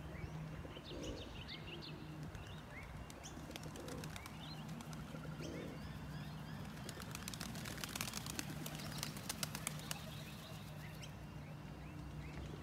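Small birds chirping faintly, with a quick run of clicks and flutters about seven to ten seconds in, over a steady low hum.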